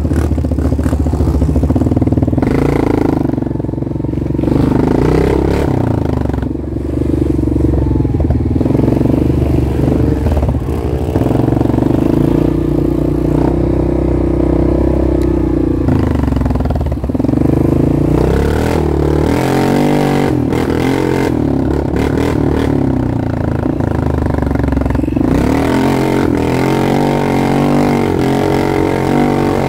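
ATV engine running under varying throttle while riding a dirt trail, its pitch rising and falling repeatedly.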